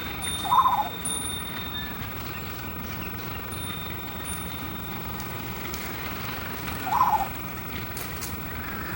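Eastern jungle crow (large-billed crow, race levaillantii) giving two short, strange calls, one about half a second in and another about seven seconds in, over steady background noise.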